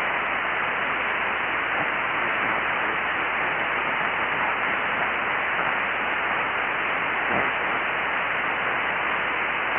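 Steady static hiss of an HF ham radio receiver tuned to an open single-sideband channel on the 40-metre band, with no one talking.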